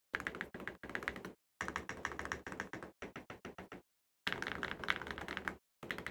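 Custom mechanical keyboard being typed on quickly: rapid runs of key clacks in several bursts, each broken off by a short gap of dead silence.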